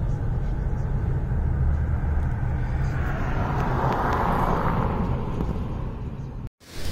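Road and engine noise heard from inside a moving car: a steady low rumble that swells about halfway through, then cuts off abruptly near the end.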